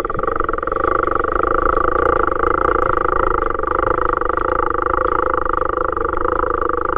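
A motor running steadily, a droning stack of tones over a rapid pulse, with a few faint clicks about two to three seconds in.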